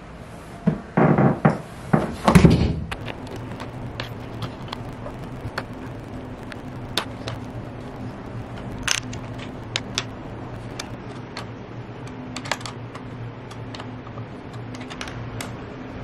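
An upholstered sofa section bumping and sliding down a staircase with a few heavy thuds, then scattered light metallic clicks as an Allen key works the bolts on the sofa's metal bracket. A steady low hum runs underneath.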